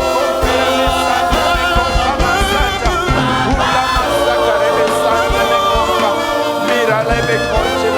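Gospel worship music: a choir or congregation singing over a band, with a steady beat.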